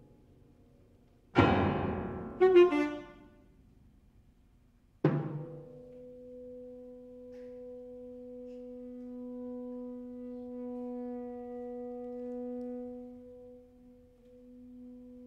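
Live contemporary chamber music for alto saxophone, piano and percussion. A loud struck attack with a deep drum-like low end comes about a second and a half in, with a second, lighter one just after. Then a short silence, another sharp struck attack about five seconds in, and a long, steady held note.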